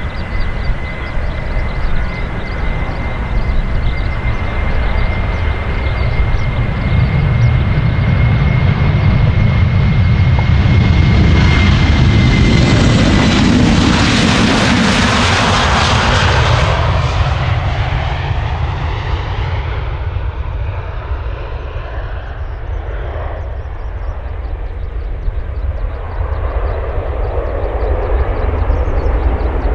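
Boeing 737-800's twin CFM56-7B turbofans at takeoff thrust during the takeoff roll: a steady high whine over a low rumble, growing loudest as the jet passes close by about halfway through, then fading as it climbs away.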